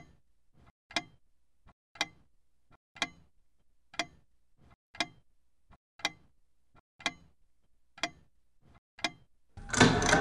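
Clock ticking once a second, each sharp tick with a fainter click between. Near the end a loud, dense burst of sound cuts in.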